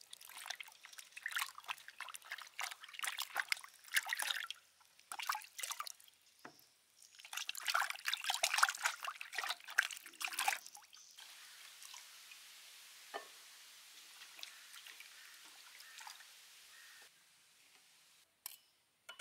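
Water splashing and sloshing in a steel bowl as hollowed bell peppers are rinsed by hand, in irregular bursts, then a quieter steady hiss of water for several seconds. A couple of light clicks near the end.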